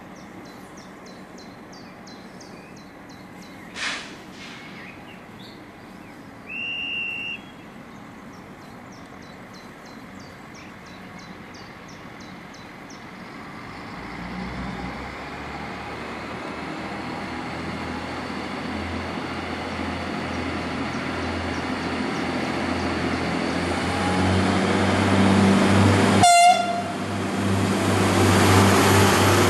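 Alstom LINT 41 diesel railcar approaching and passing close by, its engine hum building steadily louder over the second half. A short high tone comes about seven seconds in, and a brief sharp sound near the end.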